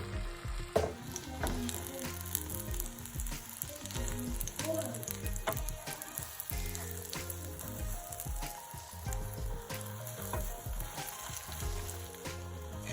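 Beaten egg sizzling as it fries in a pan for an omelette, with scattered sharp clicks and scrapes of a utensil against the pan.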